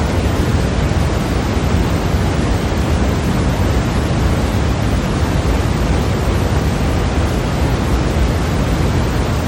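Steady, unbroken white noise for sleep, a constant hiss that is fuller in the low end and does not change.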